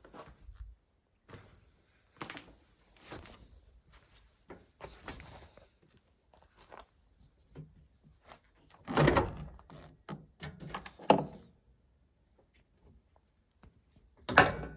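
A series of irregular knocks and thuds of things being handled, the loudest about nine seconds in, again about eleven seconds in and near the end.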